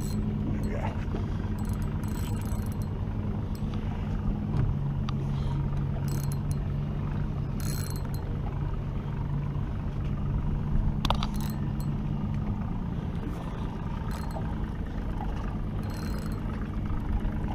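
An engine running steadily with a low rumble and hum, most likely the boat's idling outboard motor. The hum shifts in pitch about four seconds in and fades out about thirteen seconds in, with a few brief sharp clicks along the way.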